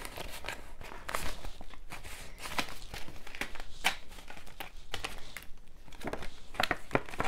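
Paper banknotes being handled: bills rustling and crinkling as a stack is flicked through and slid into a binder envelope, with many small taps and clicks.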